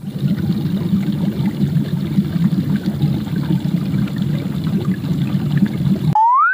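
A dense, fluttering rush of water-like noise that cuts off suddenly near the end. It gives way to a whistle sliding steadily upward in pitch, like a slide whistle.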